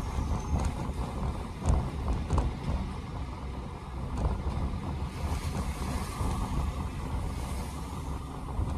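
Road noise inside a car driving on wet, slushy pavement: a steady low rumble with tyre hiss, and a couple of light knocks about two seconds in.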